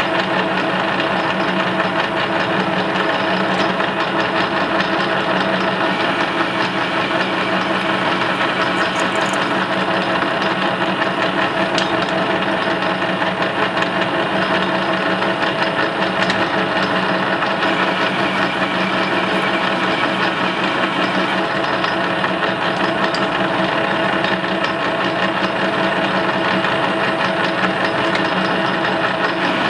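Metal lathe running at a steady speed with an unchanging whine from its drive, while a thread is cut on a shaft with a single-point threading tool.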